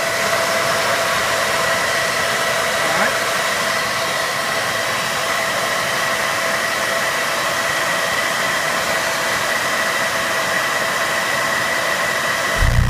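Cooling fans on a car-audio amplifier setup running: a steady loud whoosh with a thin, constant whine. A deep low thump comes in right at the end.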